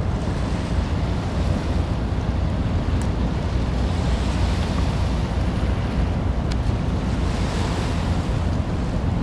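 Wind buffeting the microphone: a steady low rumble, with a hiss of wind and open water over it.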